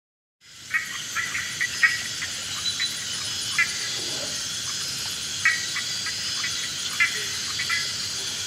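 Amazon rainforest ambience: a steady, dense chorus of insects, with short chirping calls from frogs or birds repeating every second or so over it. It rises from silence at the very start.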